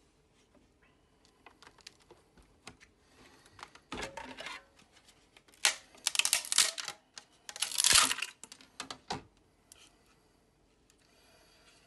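Black PETG 3D print crackling and snapping as it is pried off a flexed, textured build plate, its supports breaking away. Scattered small clicks, with bursts of crackling about four, six and eight seconds in, the last the loudest.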